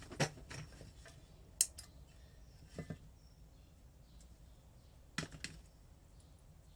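Small metal engine parts, the water pump shaft, washers and seals, handled on a workbench: scattered light clicks and taps in small clusters, two close together at a time.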